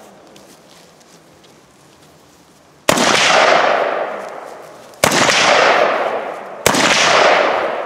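Three gunshots from a long gun, the first about three seconds in and the others roughly two seconds and a second and a half after it, each ringing out in a long echo that fades over about two seconds.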